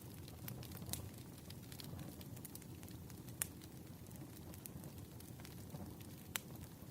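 Campfire burning with a low, steady rush and scattered sharp crackles and pops, the loudest pop about three and a half seconds in.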